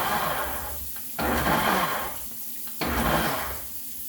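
Countertop cooking blender pulsed in short bursts, chopping cauliflower florets in water into rice-sized bits. Each burst starts suddenly and fades away, with the water churning. A new burst comes about a second in and another near three seconds.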